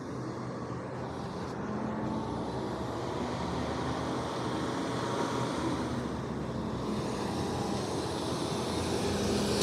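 Street traffic at an intersection: a car drives past, and a garbage truck's engine runs as it turns through, growing louder near the end as the truck comes close.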